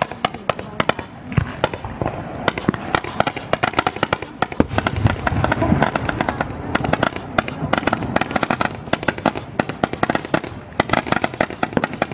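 A 12 mm low-noise roman candle barrage firing shot after shot, a rapid, dense stream of sharp pops, many each second.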